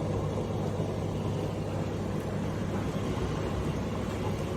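Steady low rumbling hum with no pauses or changes.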